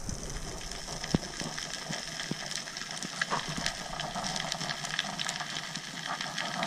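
Underwater sound over a coral reef: a dense, even crackle of fine clicks over a hiss, the typical noise of snapping shrimp, with a couple of sharper knocks in the first half.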